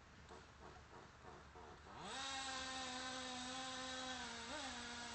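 Small high-revving engine of a radio-controlled model, faint at first, then throttling up sharply about two seconds in. It holds a steady high buzzing pitch with a brief blip of throttle near the end.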